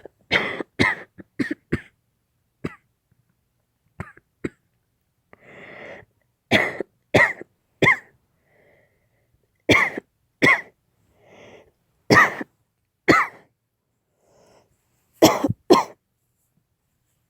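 A woman coughing hard in repeated bouts of two to four sharp coughs, with breaths drawn in between. The cough is acted as an after-effect of COVID-19.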